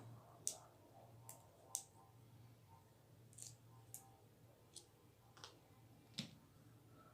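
Faint, sharp clicks and taps of small metal parts being handled as a fishing reel is taken apart, about eight at uneven intervals.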